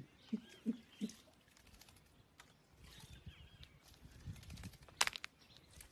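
Faint bird chirps outdoors, with three short low sounds in the first second and a single sharp click about five seconds in.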